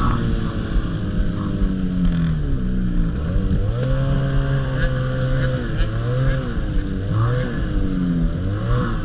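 Ski-Doo snowmobile engine running under way, its pitch dropping as the throttle eases off about three seconds in, climbing back, then rising and falling repeatedly with throttle changes near the end.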